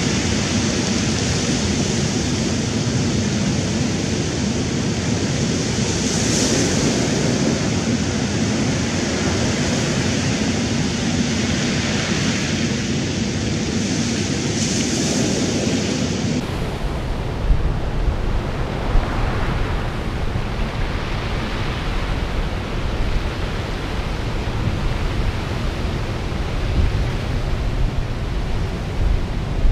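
Surf washing up a cobble beach, a steady hiss of water over the stones that swells with incoming waves about six, twelve and fifteen seconds in. About sixteen seconds in the sound changes suddenly to a deeper, steadier rush of surf with wind buffeting the microphone.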